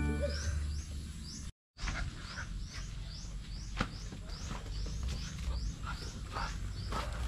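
A bird chirping over and over, short rising high notes about twice a second, over a low steady hum. The sound cuts out completely for a moment about a second and a half in.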